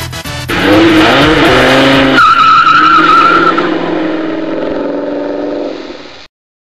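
Car engine revving with rising pitch, then tyres squealing for about a second and a half, as in a burnout. The engine runs on, fading, and cuts off abruptly near the end.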